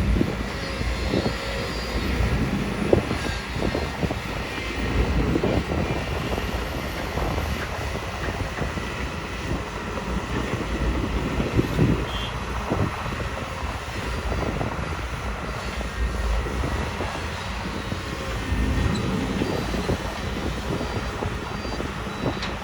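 Kobelco SK250 hydraulic excavators working, their diesel engines running steadily under load, with several short low knocks along the way.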